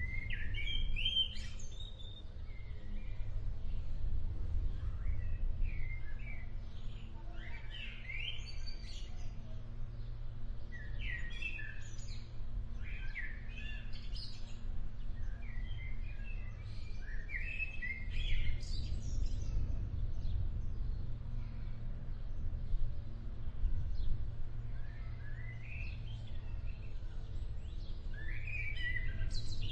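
Birds chirping and calling in short clusters every few seconds over a constant low rumble, in the outdoor ambience of an approaching thunderstorm.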